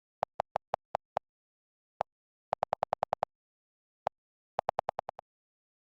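An iPhone alert tone: short identical electronic pips in a stuttering pattern, a quick run of six, one on its own, a faster run of eight, another single pip, then six more that fade away.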